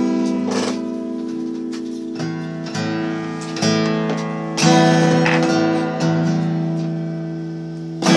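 Acoustic guitar strummed with a harmonica playing held notes over the chords, a short instrumental passage with no singing.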